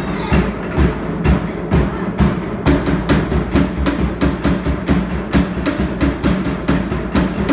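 Tahitian drumming music for dancing: a fast, steady beat of drum strikes with deep bass drum hits.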